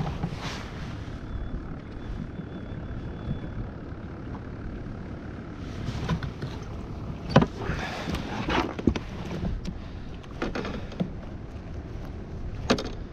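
Handling a live-bait bucket in a kayak: the plastic flip lid knocking and a hand rummaging in the bucket's water for a baitfish. It is heard as a string of sharp knocks and clicks from about six seconds in, over a steady low rush of wind and water.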